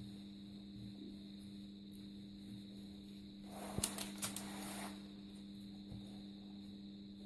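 A brief rustle of parchment paper with a few sharp taps, from strands of challah dough being handled and laid out on the paper, about halfway through, over a faint steady hum.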